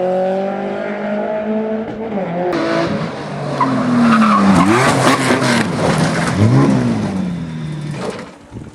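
Historic race car engine running at steady revs, then, after a sudden change about two and a half seconds in, a louder stretch of tyres skidding as the engine revs swing up and down a few times. The sound cuts off abruptly near the end.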